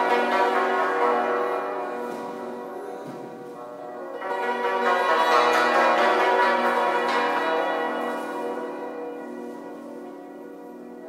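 Yangqin (Chinese hammered dulcimer) being played: clusters of ringing metal-string notes that swell and slowly die away, with a fresh group of notes about four seconds in that fades again toward the end.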